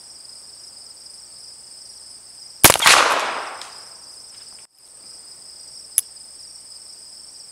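A black-powder cap-and-ball revolver fires once about two and a half seconds in, its report trailing off over about a second. A single sharp click follows a few seconds later, over steady insect chirring.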